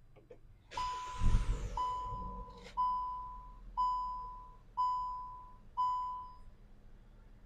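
Kia Stonic's engine cranking and catching about a second in, then settling into a faint idle, while a dashboard warning chime dings six times, about once a second, each ding fading out.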